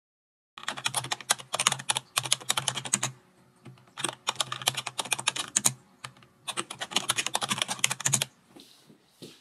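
Rapid typing on a computer keyboard: three runs of quick keystrokes with short pauses between them.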